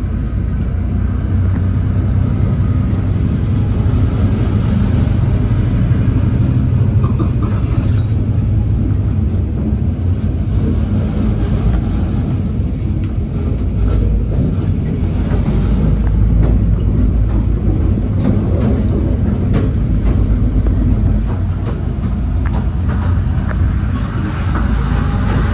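N-set passenger train hauled by an N-class diesel locomotive, running and heard from on board: a steady low rumble with scattered clicks.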